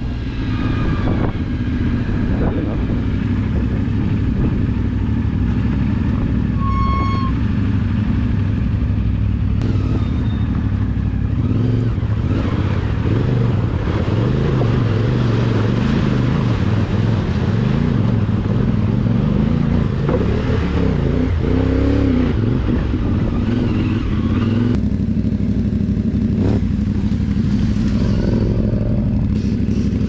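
CFMoto 450MT's parallel-twin engine running under way on an off-road trail, its note rising and falling with the throttle. A short beep sounds about seven seconds in.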